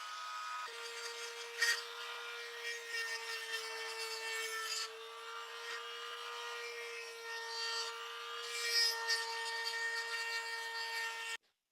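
Small high-speed power tool running at a steady pitch while it scrapes and rubs against the scale's rusted metal, with a few harder scrapes. The sound starts and stops abruptly.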